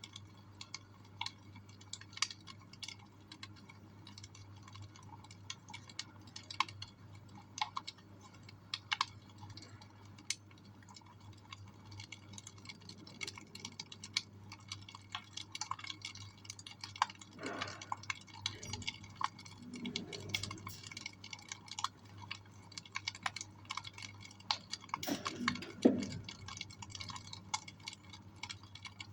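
Wood fire in a fireplace crackling, with irregular snaps and pops over a steady low hum. A few louder pops come near the end.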